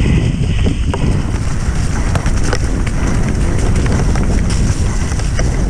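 Mountain bike descending at speed on a rough trail: heavy wind buffeting on the microphone, with scattered sharp rattles and knocks from the bike over the ground.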